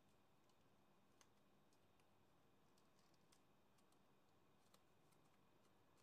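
Near silence, broken by scattered faint clicks of folded paper as an origami cicada is pressed and shaped in the hands.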